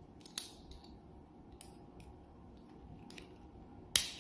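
Metal parts of a Schlage B571 deadbolt's bolt assembly clicking as they are worked by hand to pop a fitting off, a few light clicks followed by one loud sharp metallic snap near the end.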